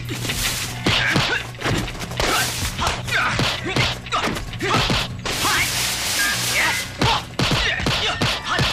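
Dubbed kung fu fight sound effects: a quick string of punch and block impacts with swishes of sleeves and arms, over film music.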